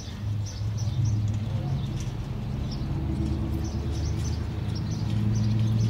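Outdoor ambience: small birds chirping in many short, high calls over a steady low hum.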